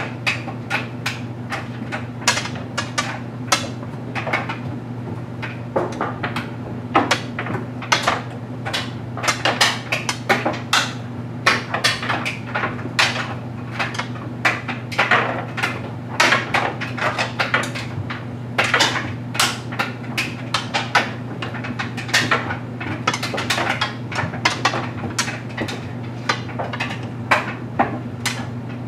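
LG Mega Capacity clothes dryer running with a steady low hum, its drum tumbling a load of stuffed animals that knock and clatter against it irregularly, a few times a second.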